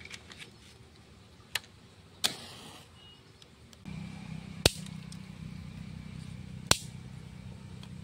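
Twigs and a paper wrapper catching fire in a brick wood-fired stove: a few sharp cracks and pops, the loudest two about halfway and near the end. A steady low hum sets in about halfway.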